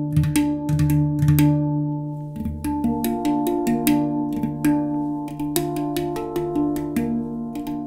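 Steel handpan played by hand with the three-finger 'eshareh' grace-note stroke: quick clusters of finger taps roll into each note, and the struck notes ring on and overlap. The strokes come faster and more notes join from about two and a half seconds in.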